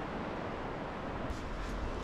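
Steady wind-and-sea noise, with wind buffeting the microphone as a low rumble that grows about a second and a half in, and a few faint clicks just before.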